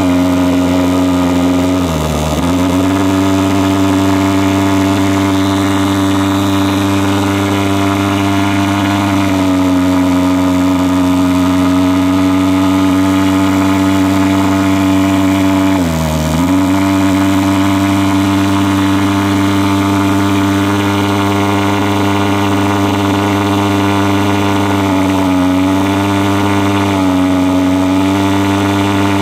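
Superfogger KB 150 thermal fogging machine's pulse-jet engine running with a loud, steady buzzing drone. Its pitch sags briefly about two seconds in and again about sixteen seconds in, with smaller wobbles near the end, as the fuel and gas settings are tuned for a stable running note.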